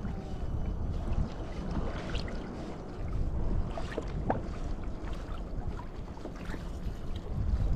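Wind buffeting the microphone on a kayak out on choppy sea, with water lapping against the hull and a few short ticks and clicks.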